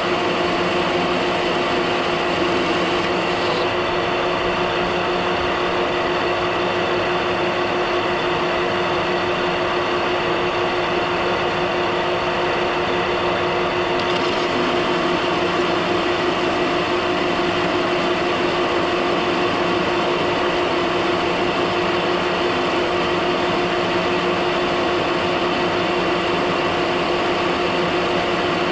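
Metal lathe running steadily with a constant machine hum and whine, its carbide insert tool turning a steel spindle shaft.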